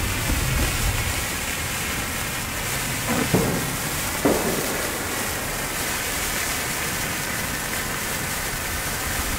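Handheld F1 bengal flare burning with a steady hiss as it throws out sparks, with two brief sharper sounds about three and four seconds in.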